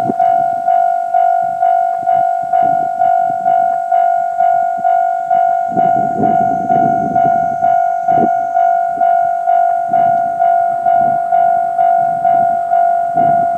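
Level-crossing warning bell clanging steadily, about two strikes a second, each ringing note fading before the next. Underneath, the uneven rumble and clatter of a freight train of two-axle Wam 80000 boxcars rolling through the crossing, with a sharp knock about eight seconds in.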